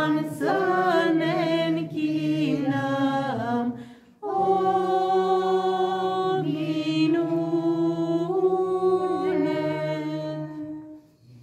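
A woman's solo voice sings a Romanian Epiphany carol in a chant-like style into a microphone, over a low held note. She pauses for a breath about four seconds in, and the final phrase dies away near the end.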